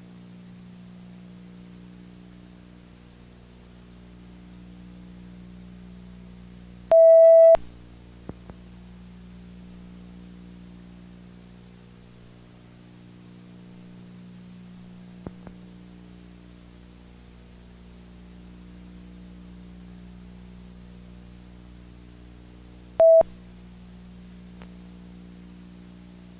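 Steady low electrical hum with a buzzing edge, the kind of mains hum carried on the sound track of a silent film transfer. About seven seconds in a loud single-pitched beep sounds for about half a second, a few faint clicks follow, and a second, very short beep comes near the end.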